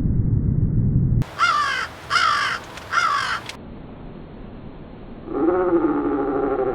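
A low rumbling noise cuts off about a second in. A bird then gives three harsh calls in quick succession, and one longer, lower call follows near the end.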